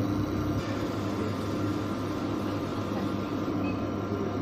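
A steady mechanical hum with an even hiss behind it, unchanging throughout, like a small electric motor or fan running.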